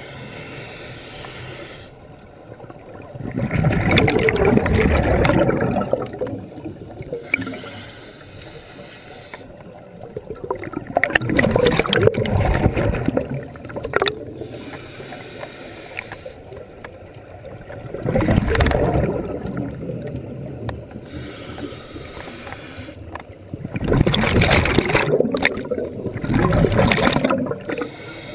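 Scuba diver's regulator exhaust heard underwater: five loud bursts of bubbles as the diver breathes out, roughly every six seconds, with the last two close together and a quieter hiss between them.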